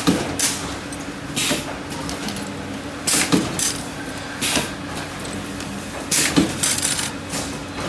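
Short bursts of compressed-air hiss at uneven intervals over a steady electrical hum, with a few sharp metal clicks: the pneumatic clamps and cylinders of a resistance butt welding machine for copper-to-aluminium tube working.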